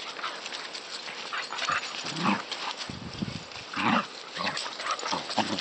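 Two Border collies play-fighting, giving about four short growls and barks from about two seconds in, with paws scuffling on grass between them.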